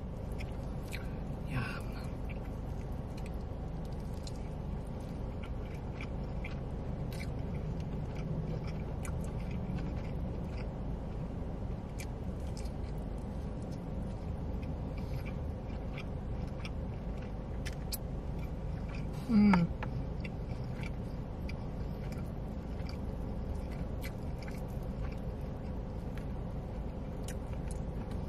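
Close-up chewing and mouth sounds of someone eating barbecue-glazed pork ribs: scattered soft clicks over a steady low hum, with one short falling "mm" about 19 seconds in.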